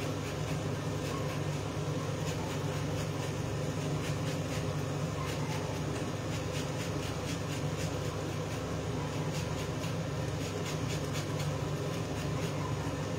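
Steady low hum of a kitchen cooker-hood fan, with faint, irregular scraping of a metal utensil against the pan.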